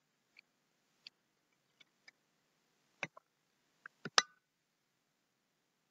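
Small clicks and taps from a plastic water bottle being drunk from and set down: a few faint ticks, then a cluster of louder knocks about three to four seconds in, the last the loudest.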